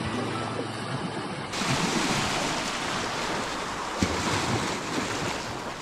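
Sea waves breaking and washing up the shore, with wind on the microphone. Background music fades out at the very start, and the surf gets louder and fuller about a second and a half in.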